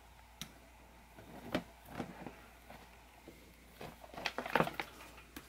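Soft clicks and rustles of hands handling a small soldering iron and its power cable as the plug is connected, with a denser cluster of handling clicks about four seconds in.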